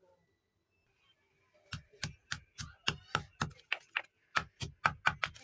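Chalk being crushed: a quick, even run of sharp crunches, about three a second, starting a little under two seconds in.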